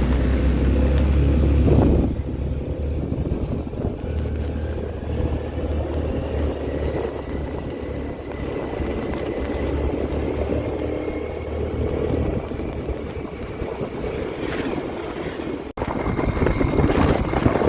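Suzuki Burgman Street 125EX scooter's single-cylinder engine and CVT running steadily, a low engine note with a faint high whine over it. The sound breaks off for an instant about three-quarters of the way through, then comes back louder and rougher.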